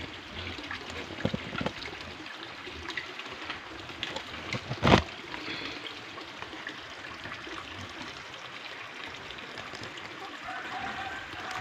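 Steady sound of running water, with one loud knock about five seconds in and a short chicken call near the end.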